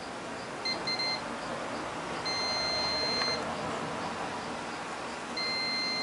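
Multimeter continuity beeper sounding as the probes touch a switch terminal on the circuit board: two short beeps about a second in, a beep of about a second in the middle, and a long beep starting near the end. The beep signals electrical contact between terminal and trace.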